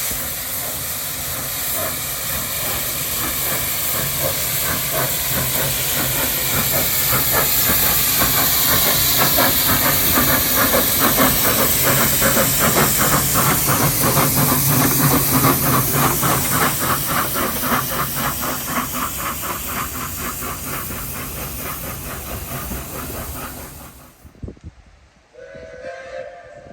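Narrow-gauge steam locomotive getting under way: a hiss of steam, with its exhaust beats growing distinct and quickening. The sound cuts off suddenly near the end.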